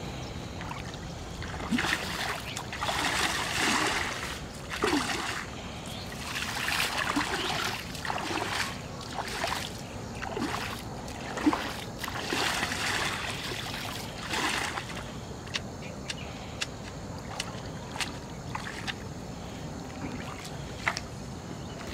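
A long pole plunged and stirred in shallow, muddy canal water, the water splashing and sloshing in repeated bursts of a second or two. After about fifteen seconds the splashing stops and only scattered short clicks remain.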